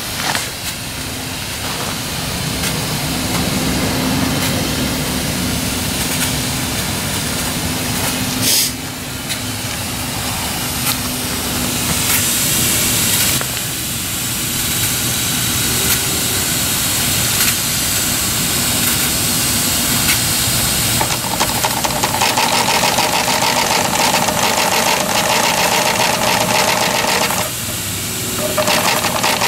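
A 7-1/2 gauge Clishay live steam logging locomotive's geared steam engine running, with rapid even exhaust beats over steam hiss. A steady tone sits under it in the first half, and higher tones take over about two thirds of the way through.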